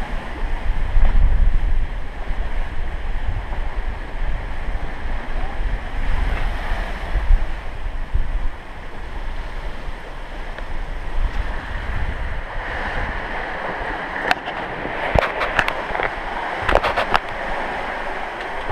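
Open-sea waves and wind rushing past a sailing catamaran under way, with wind buffeting the microphone through the first half. Several sharp clicks and knocks come near the end.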